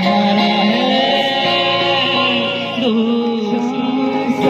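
A man singing live to his own strummed acoustic guitar, a held, sliding vocal melody over the guitar.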